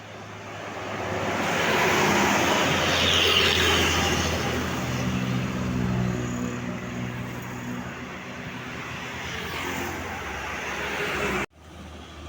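Tour bus driving past at close range: tyre and engine noise swells over the first two seconds, then settles into a low engine hum. The sound cuts off suddenly near the end.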